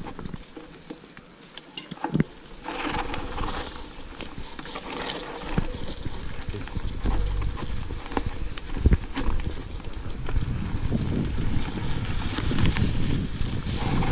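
Mountain bike being ridden over a rough forest trail: scattered knocks and rattles, with a steady low rumble building from about six seconds in.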